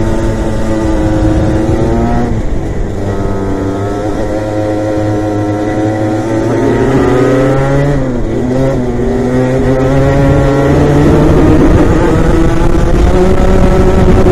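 Onboard sound of a Rotax racing kart engine at race speed. The revs fall about two seconds in as it lifts for a corner, climb again, dip briefly near the middle, then rise and hold high near the end. The engines of other karts running close ahead are heard with it.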